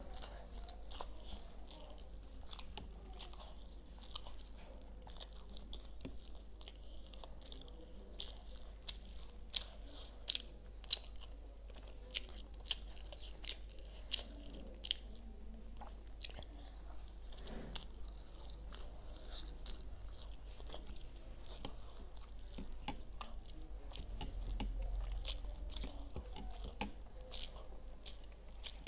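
A person chewing and eating chicken momos, with many short sharp mouth clicks and smacks throughout.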